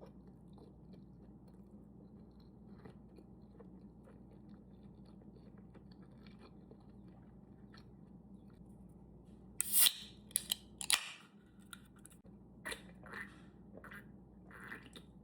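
A person eating close to the microphone: soft, faint chewing sounds, then, about ten seconds in, a run of louder crunchy bites and chewing, with a few more short crunches near the end.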